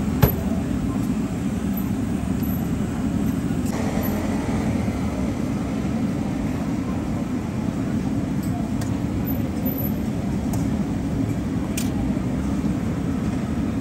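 A steady low rumble, with one sharp click just after the start.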